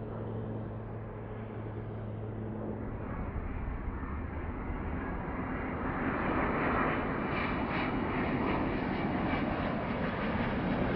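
Airliner jet engines. For about three seconds, a steady low hum from an Airbus A350 rolling along the runway after landing; then the noise of an Airbus A350-900's Rolls-Royce Trent XWB engines on final approach, growing steadily louder as the plane nears.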